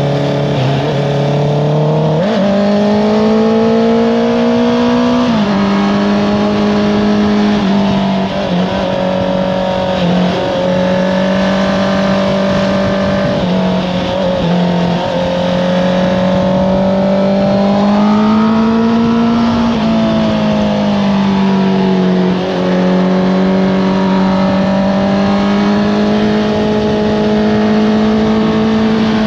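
Honda CBR650R inline-four engine through an Akrapovic exhaust, heard from the moving bike as it is ridden through corners: the revs rise and fall continuously, with several sudden pitch steps as gears are changed.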